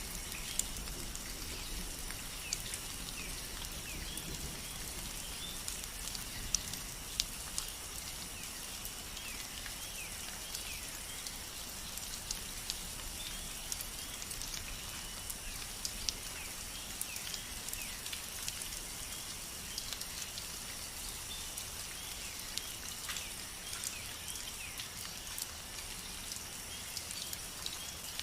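Steady rain, with many scattered drops ticking sharply on a surface.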